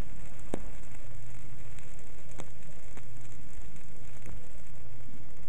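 Vinyl LP surface noise in the lead-in groove before the music starts: a steady hiss and low hum with a few scattered clicks and pops.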